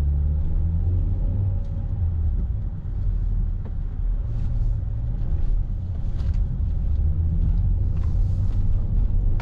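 Car engine running and road rumble heard from inside the cabin while driving: a steady low drone.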